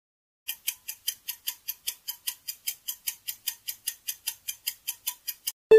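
Countdown-timer clock ticking sound effect: quick, even ticks, about five a second, starting half a second in. Right at the end a bright chime sounds as the countdown ends.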